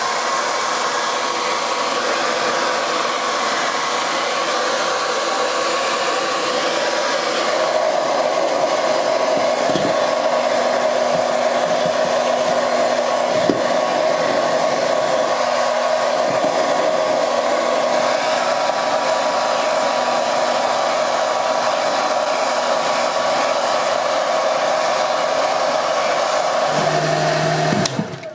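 Electric hair dryer running steadily, blowing air with a constant whine over the rush, then switched off about a second before the end.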